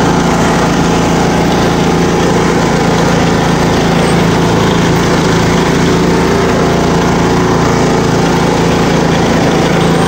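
Craftsman riding lawn mower's engine running steadily and loudly, with no change in speed.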